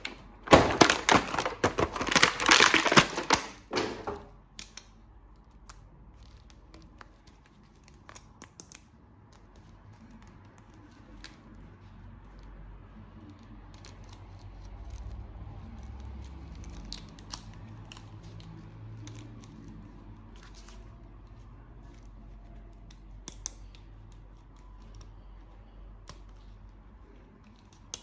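Toy packaging being opened: a dense run of crackling and tearing for about four seconds, then faint scattered clicks of handling.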